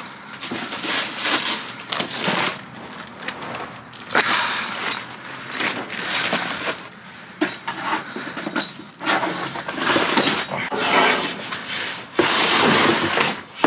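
Rummaging through dumpster trash: bags and food packaging rustling, crinkling and scraping in repeated bursts, loudest near the end.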